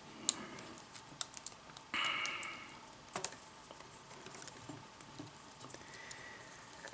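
Light, scattered clicks and taps of hands handling a folded plastic wire connector and rubber band, with a brief higher-pitched squeak about two seconds in.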